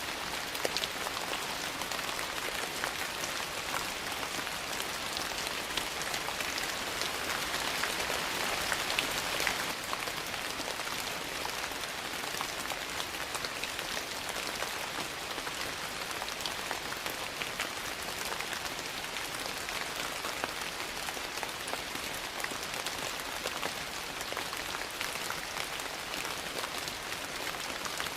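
Steady rain falling, with scattered sharp ticks and pops through it; it swells a little about eight seconds in.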